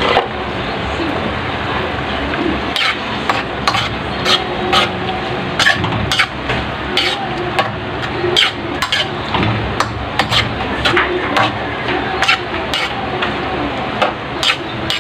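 Long metal spoon stirring squid adobo in a steel wok, clinking and scraping against the pan again and again over the steady sizzle of the simmering sauce.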